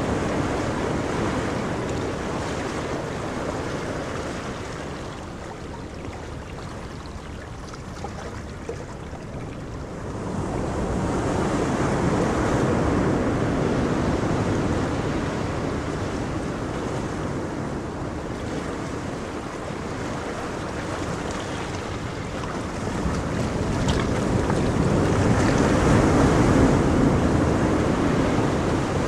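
Ocean surf: waves breaking and washing up the beach in a steady rush that swells and eases, with fresh breakers building about ten seconds in and again near the end.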